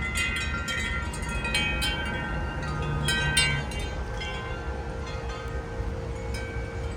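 Tuned tubular wind chimes struck by the wind: a flurry of ringing strikes in the first few seconds, thinning to occasional strikes with the tones ringing on. Low wind rumble on the microphone underneath.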